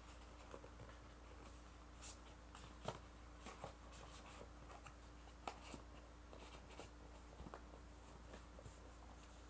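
Faint handling sounds: scattered light taps, clicks and short rustles as a tablet, its box and accessories are moved and set down on a surface, over a low steady hum.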